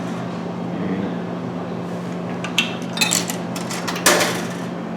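Coins clinking into a snack vending machine's coin slot: a few sharp metallic clicks past the middle and a louder clatter about four seconds in, over a steady low hum.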